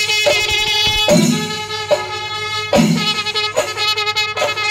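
Kerala temple melam: chenda drums and ilathalam cymbals beating densely while kombu, curved brass horns, blow long brassy notes over them in a repeating phrase.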